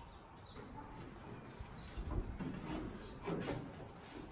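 Faint birds chirping in the background, with a few light knocks and handling sounds about two and three seconds in as a sheet-metal roof section is set back in place.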